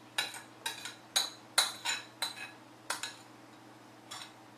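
A metal spoon clinking and scraping against a ceramic bowl as thick black bean sauce is scraped out onto rice. The sharp, ringing clinks come about two a second, with a short pause near the end.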